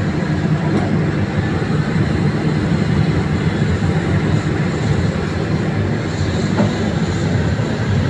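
Heavy diesel engine of large mining machinery running steadily under load, a dense unbroken low rumble.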